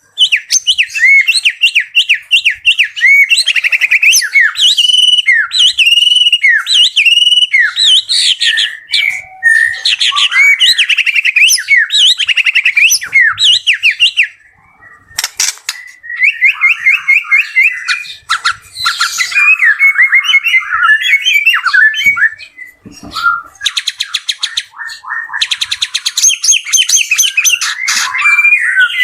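White-rumped shama (murai batu) singing a loud, fast, varied song of sweeping whistled notes and rapid repeated phrases, with a short break about halfway through.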